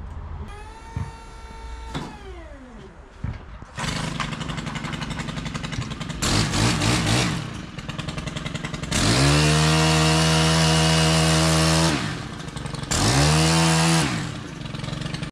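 A small engine revving: it runs low through the first seconds, climbs to a loud steady high speed for about three seconds, drops, then revs up once more briefly near the end.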